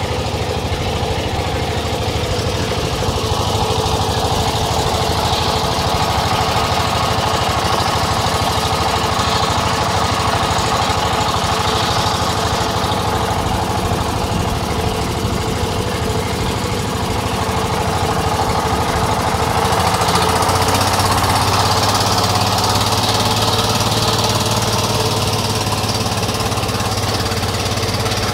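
Engine of a wooden long-tail river boat, running steadily under way, with a little more low hum from about two-thirds through.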